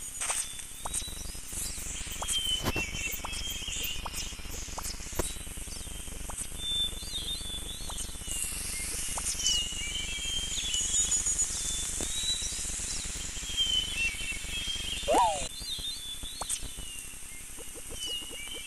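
Birds chirping in short calls that recur every couple of seconds, over a steady low background hiss, with a few faint knocks. A short rising animal call comes about fifteen seconds in.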